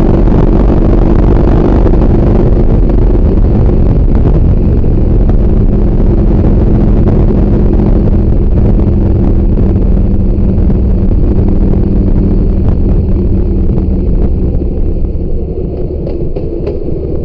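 A Harley-Davidson Heritage Softail's V-twin engine running steadily at road speed, with wind rushing past the windshield. The sound grows quieter and duller near the end.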